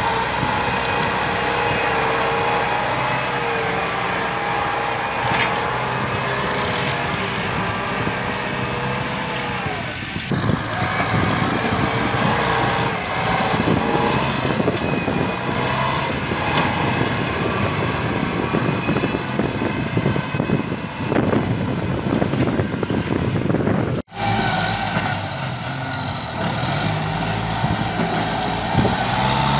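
Kubota tractor's diesel engine running steadily under heavy load as its front blade pushes down brush and small trees, with cracking of breaking branches. The sound cuts out for an instant about three-quarters of the way through.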